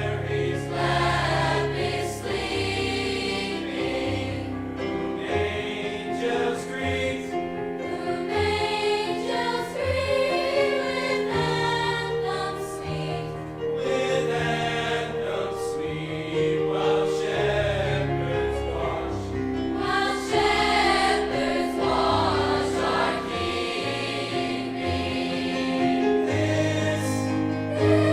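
Large high school choir singing in harmony, many voices holding chords that change every second or two.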